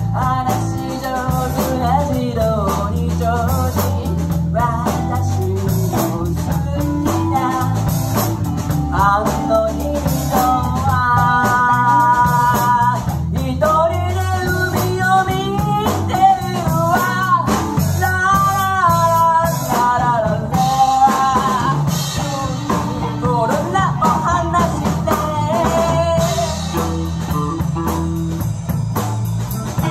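Live band playing a song on drum kit, bass and guitar, with a lead melody line over them that has held, wavering notes partway through.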